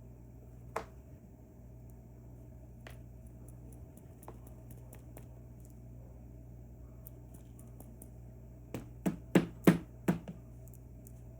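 Small, sharp metal clicks and taps from lock parts and tools being handled while an Assa Twin V10 lock is taken apart: a faint click about a second in, then a quick cluster of about six clicks near the end, over a low steady hum.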